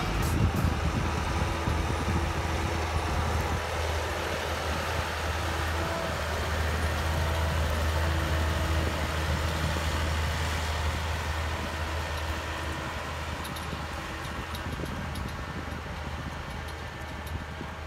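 Massey Ferguson 6480 tractor's six-cylinder diesel engine running steadily under load while pulling a laser land-leveling scraper through tilled soil. It grows a little louder around the middle as the tractor passes, then fades as it moves away.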